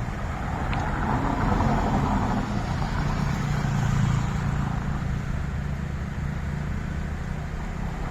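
Road traffic: a motor vehicle's engine rumbling as it passes, growing louder from about a second in and easing off after about five seconds, over steady traffic noise.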